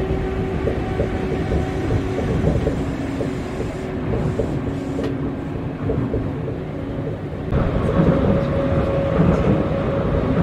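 Yui Rail monorail train running between stations, heard from inside the car: a steady rumble of the rubber tyres on the concrete track beam, with humming motor tones. About seven and a half seconds in the sound changes abruptly, growing a little louder with a higher hum.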